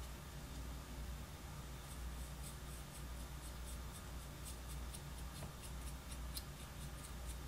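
Small paintbrush scrubbing dry weathering powder onto an HO-scale model locomotive: a run of light, quick scratchy strokes, about four a second, starting about two seconds in, over a low steady hum.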